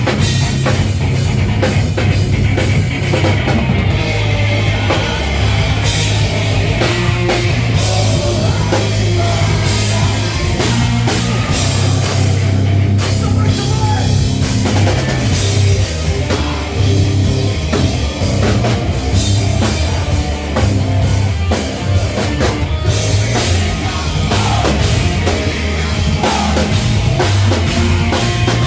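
A rock band playing live and loud: a drum kit keeps a steady beat over a strong bass line, with the full band playing throughout.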